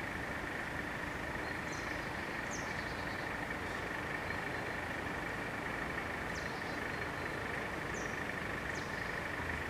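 Level-crossing bell ringing continuously as a steady high tone while the barriers are down. Short bird chirps come over it every second or two, with a steady low rumble underneath.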